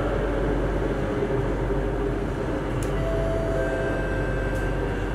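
Singapore MRT Circle Line train heard from inside the carriage: a steady rumble of wheels on rail with the motors' whine, as the train runs into a station. Two brief sharp clicks sound about three and four and a half seconds in.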